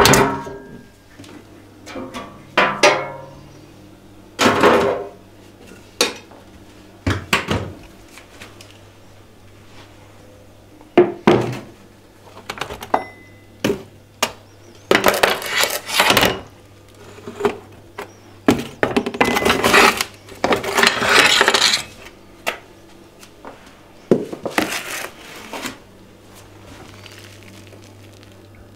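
Kitchenware being handled: plates and utensils clink and knock, with a few longer scraping or rubbing stretches in the middle. A faint steady hum runs underneath. The handling stops a few seconds before the end.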